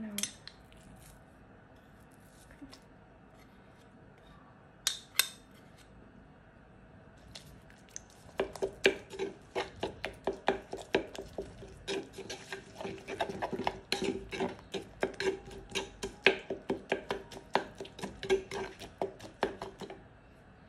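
Metal spoon stirring and scraping chopped chilies and garlic in a mortar, a run of quick clinks against the bowl, about four a second, from about eight seconds in, after two single knocks near five seconds.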